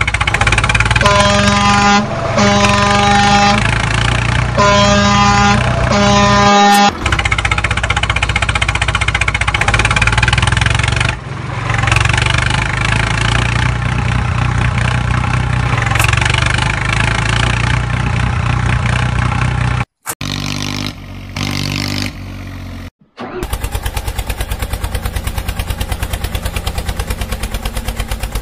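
Dubbed-in tractor engine sound effect running steadily, with a horn sounding four times in the first seven seconds. After a couple of brief cut-outs about twenty seconds in, it changes to a fast, even engine putter.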